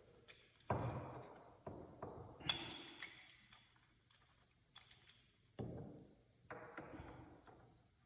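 Metal clinks and knocks as a clamping tool is fitted and worked against a metal door hinge to press its pin in: about eight separate hits, each with a short ringing tail, two of them sharper and brighter a few seconds in.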